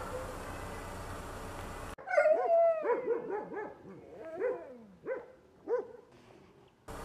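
Dogs at an animal shelter barking and yelping. A noisy background with faint barks gives way about two seconds in to a long falling whine, then a quick run of short yelping barks, then three spaced barks near the end.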